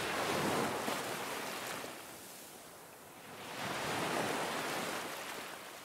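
Ocean surf breaking and washing over reef rocks, a rushing noise that swells twice: once at the start and again about three and a half seconds in.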